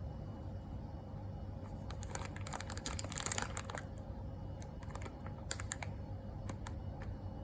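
Instant-noodle packaging being handled: a flurry of small crinkles and clicks that peaks a couple of seconds in, then a few scattered clicks, over a low steady hum.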